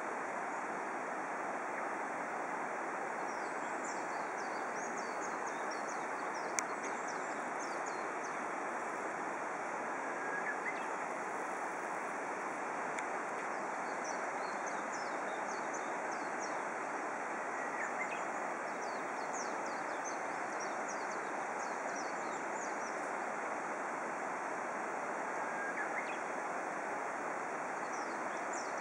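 Steady outdoor background noise with many short, high bird chirps over it, and a brief rising bird call three times, about eight seconds apart.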